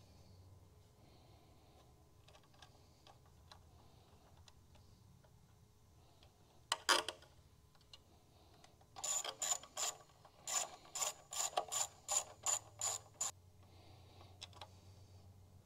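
A single clatter, then a hand socket ratchet clicking in quick strokes, about four clicks a second for some four seconds, as it turns nuts on a trailer junction box's terminal studs; the nuts are stiff from paint on the stud ends.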